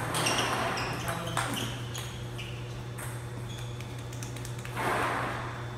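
Table tennis ball being hit in a rally, clicking off the rackets and bouncing on the table as several quick sharp pings in the first three seconds. A steady low hum runs underneath, and a short rush of noise comes about five seconds in.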